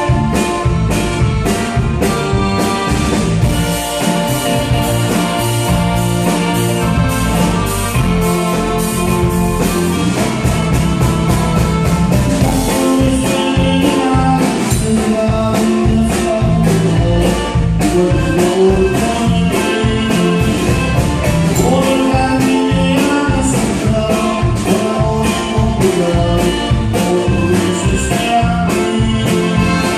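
A live band playing a song with singing over a steady drum beat.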